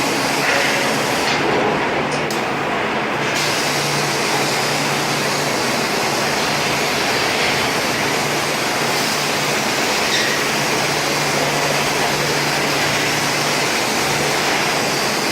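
Fiber laser cutting machine cutting 4 mm carbon steel: a loud, steady hiss of assist gas at the cutting head over a steady low hum. About a second in, the highest part of the hiss drops away for about two seconds, then comes back.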